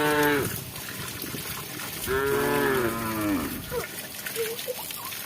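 Cow mooing: the tail of one moo in the first half second, then a second long moo about two seconds in that drops in pitch as it ends.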